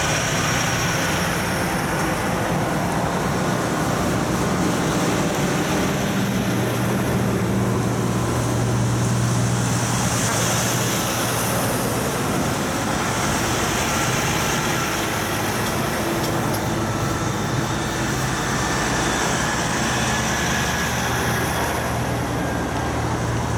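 A line of heavy diesel trucks driving past one after another: a steady low engine drone with tyre noise that swells and fades as each truck goes by.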